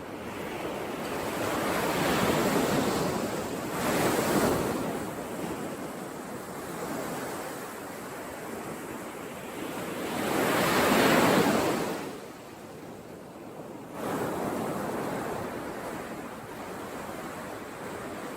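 Sea waves surging in and washing back, rising and falling in swells. The loudest surges come about four seconds in and about eleven seconds in.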